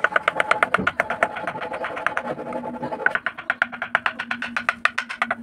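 Rapid, even taps of a mallet on a narrow carving chisel cutting into a wooden flower panel, about eight strikes a second. The taps grow louder and sharper about three seconds in.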